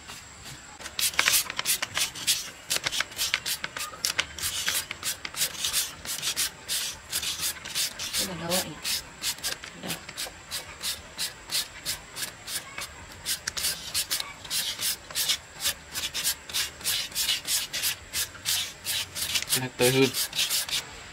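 Rhythmic scraping strokes of a hand tool working a rough surface, about two or three strokes a second.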